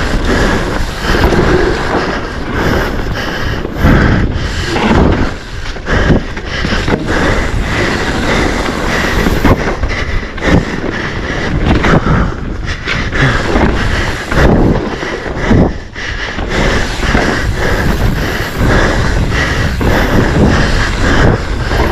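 Mountain bike riding hard over a rough dirt trail: constant tyre rumble and rattling over bumps, with many sharp knocks. Wind buffets the microphone.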